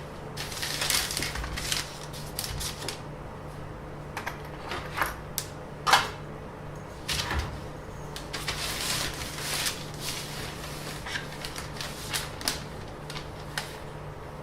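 Irregular clicks, taps and short rustles of objects being handled close to the microphone, the sharpest about six seconds in, over a steady low hum.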